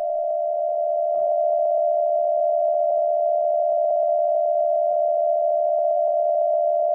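Steady electronic alert tone at one mid pitch, held unchanged: the attention signal of an emergency alert broadcast.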